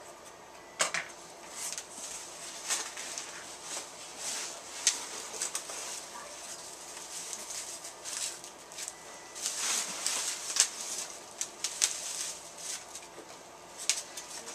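Rustling and crinkling of foam packing peanuts and plastic bags as hands dig through a cardboard box and lift out bagged comic books: irregular sharp crackles and scrapes, none steady.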